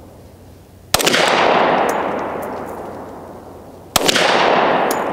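Two shots from a Glock 20 10mm pistol firing cast-lead handloads, about three seconds apart. Each sharp report is followed by a long echo that fades slowly.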